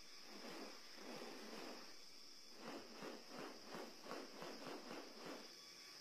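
A displaying black bird-of-paradise makes soft, breathy rasping pulses. They are spaced apart at first, then come quickly at about three a second in the middle. A steady high hiss of forest insects runs underneath.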